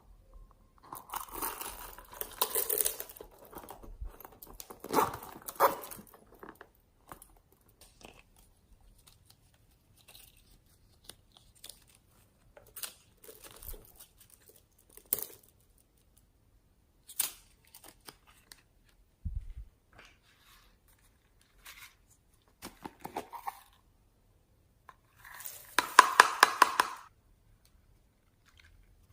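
Slime being squished and stretched by hand, with sticky crackling and small popping clicks in separate bouts and quiet gaps between. The loudest bout comes near the end.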